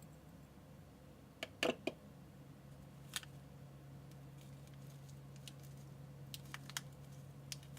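A few sharp clicks and taps from small objects being handled, the loudest a quick group of three about a second and a half in and another cluster near the end, over a steady low hum.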